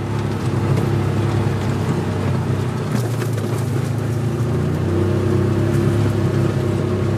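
Side-by-side UTV engine and drivetrain running steadily while driving, heard from inside the cab, with a brief knock about three seconds in.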